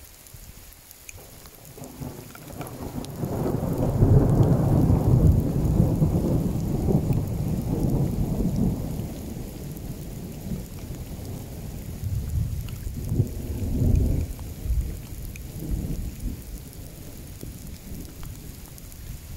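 Thunder rolling: a long low rumble that builds over a couple of seconds, peaks and slowly dies away, then rolls again more weakly a few seconds later. Steady rain falls throughout.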